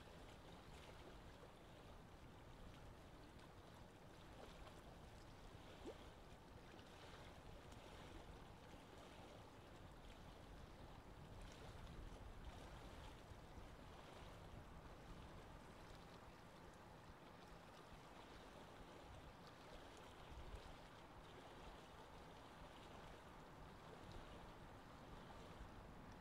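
Faint, steady wash of choppy seawater, with a low rumble underneath.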